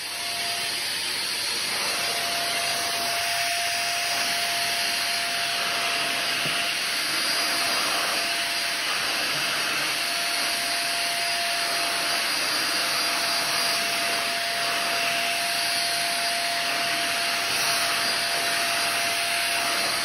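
A corded 600 W 2-in-1 upright stick vacuum cleaner switches on and runs steadily as its floor head is pushed over a shaggy rug. The rush of air carries a thin, steady whine.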